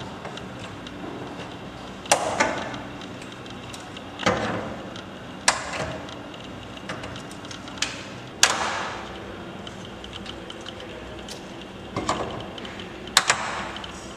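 A string of sharp knocks and clicks from hard objects, about eight at irregular spacing, some in quick pairs, each ringing briefly.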